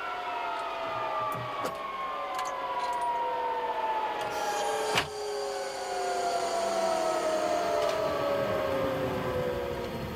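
A Mirage 5BR's turbojet engine winding down, its whine falling slowly and steadily in pitch. A sharp click about halfway through.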